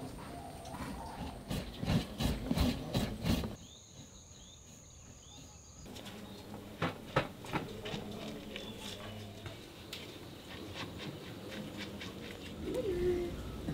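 Coarse granular flour scraping and rattling in a clay pot, with quick sharp clicks from a few seconds in, then poured out of the pot onto a cloth near the end. Faint bird chirps and a steady high insect whine sit in the background.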